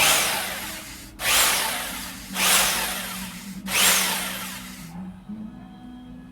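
Ingco rotary hammer drill with an SDS bit, set to rotation, run in four short bursts, each starting sharply and fading away.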